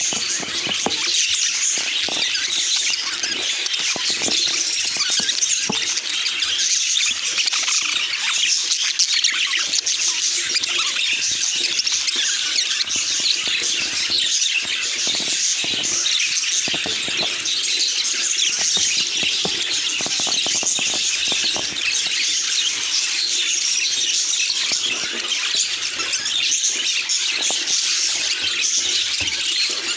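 Budgerigars chattering and chirping continuously, many quick high-pitched warbles and squeaks overlapping at a steady level.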